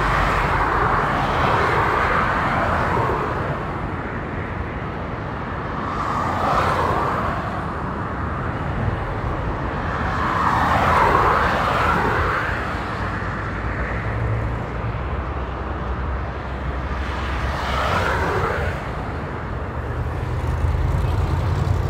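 Road traffic passing on a multi-lane highway. Vehicles go by one at a time, four times, their tyre and engine noise swelling and fading, with the loudest pass about eleven seconds in, over a steady low rumble.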